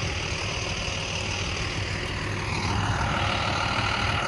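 Engine of an International armored truck running steadily. About three seconds in, a higher whine joins and the sound grows a little louder.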